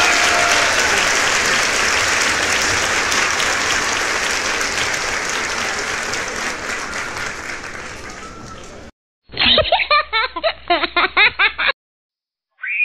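Applause fading out slowly over about nine seconds, then after a moment of silence about two seconds of laughter that stops abruptly, like an added sound clip.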